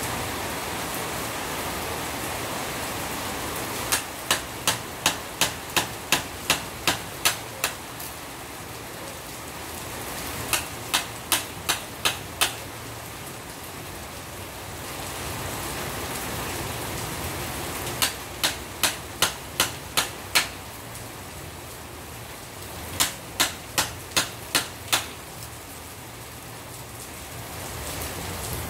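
Hammer striking a chisel held in a three-phase motor stator, cutting off the burnt copper winding: four runs of sharp blows, about three a second, over the steady hiss of rain.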